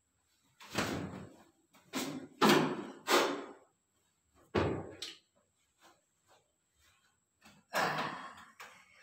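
A wooden chair knocking and bumping on the floor in a series of irregular thuds, about six in all, as its cloth cover is pulled off and it is moved. The last thud, near the end, comes as someone sits down on it.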